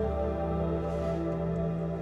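Calm background music with long held notes.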